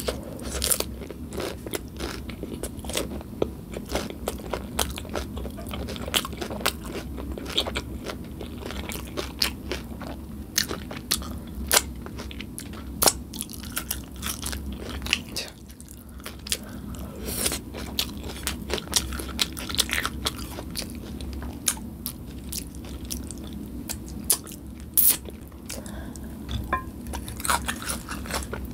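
Close-miked chewing and crunching of a crisp Nacho Cheese Doritos taco shell with beef filling, with many sharp, irregular crunches.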